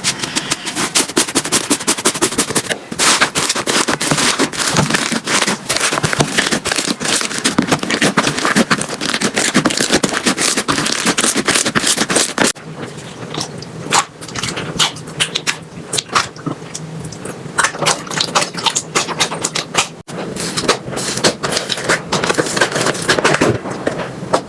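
Slime being handled, making dense, rapid crackling and popping clicks. The texture changes abruptly about halfway through and again near the end.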